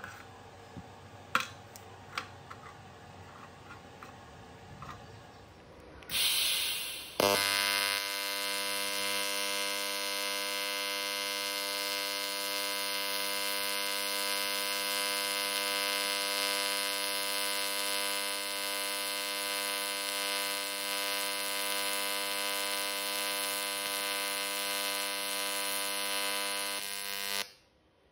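AC TIG welding arc on aluminium: a few light metal clicks, then a short hiss as the arc is struck about six seconds in, followed by a steady, even arc buzz for about twenty seconds that cuts off suddenly near the end.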